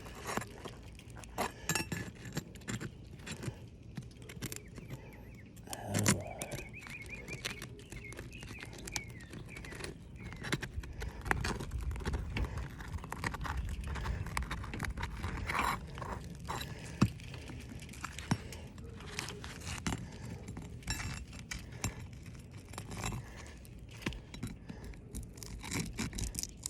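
A metal tool scraping and clicking under an asphalt shingle, with repeated short clicks and scrapes as the shingle's sealant strip is broken loose so it can be lifted.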